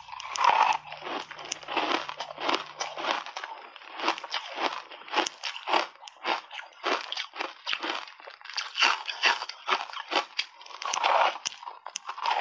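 Ice chunks coated in matcha tea powder crunching between the teeth, bitten off in big bites and chewed: a fast, uneven run of crunches, several each second.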